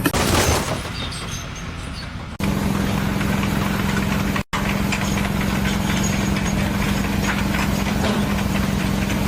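An engine running steadily with a constant low hum, heard across abrupt cuts between clips.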